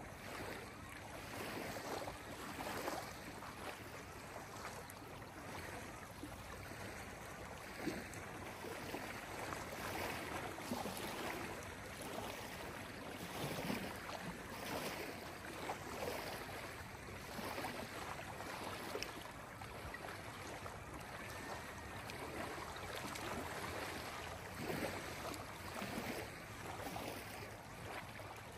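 Small waves lapping on a dark gravel lake shore, with soft, irregular splashes every second or so over a steady wash.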